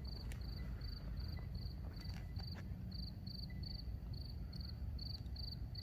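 A cricket chirping steadily, short trilled chirps at one high pitch, about five every two seconds, over a low background rumble.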